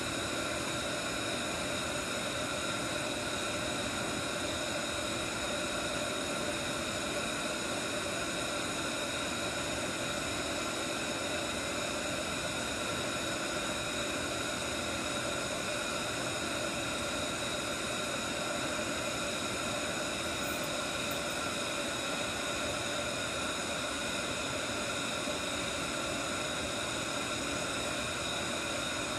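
Steady, even drone of blowing air from a fan in laboratory equipment, holding at a constant level.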